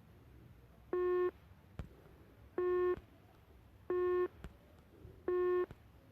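WhatsApp call tone: four short beeps of the same pitch, about a second and a half apart, like a telephone busy signal. Two faint clicks fall between the beeps.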